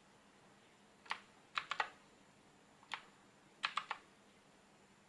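Keys of a mechanical keyboard with Kailh switches being pressed: a single click, a quick run of about three, another single, then another run of about three. The presses switch the speed of the keyboard's backlight effect.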